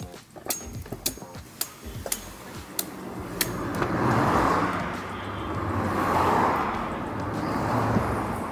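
Sharp chopping strikes, about six roughly half a second apart, as a green coconut is hacked open with a machete. Then the rising and fading rush of road vehicles passing, twice.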